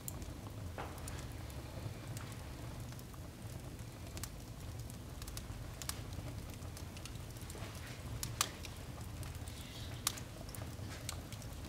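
Firewood burning in a fireplace: irregular crackles and pops over a steady low rumble, with two sharper pops late on.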